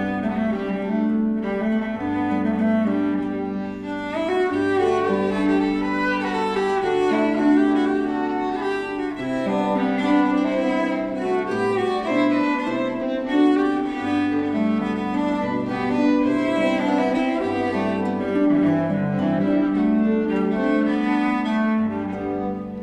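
Background music of bowed strings, violin and cello, playing a slow tune of held notes.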